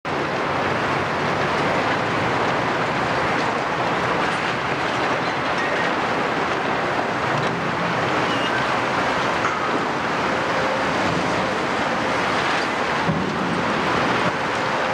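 Demolition excavators at work: a steady din of heavy diesel engines running, with the crunching and clattering of concrete being broken and debris falling.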